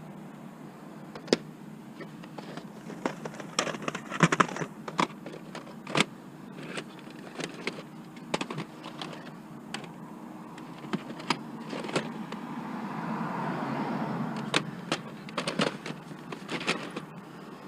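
Plastic VHS cassettes and cases clicking and clattering as they are handled and sorted, in a run of short knocks, with a broad rush of noise that swells and fades about two-thirds of the way through.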